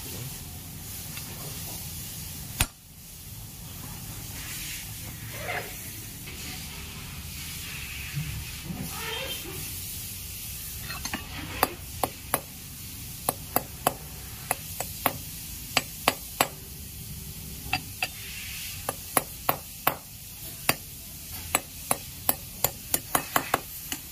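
Sharp metallic clicks and taps of rocker arms and hydraulic lash adjusters being fitted and handled on a Mahindra Xylo engine. There is a single knock near the start, and from about halfway through the clicks come one to three a second, growing denser, over a steady background noise.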